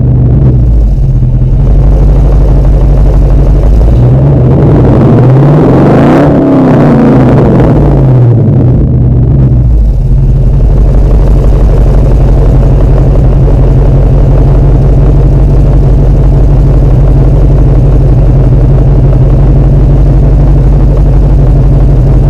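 Dodge Charger SRT8's V8 engine being revved while stationary: one blip about four seconds in that climbs in pitch, peaks about six seconds in and falls back, then a steady, loud idle for the rest.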